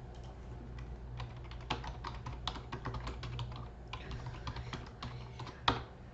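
Typing on a computer keyboard: quick irregular key clicks, with one louder click near the end, over a steady low hum.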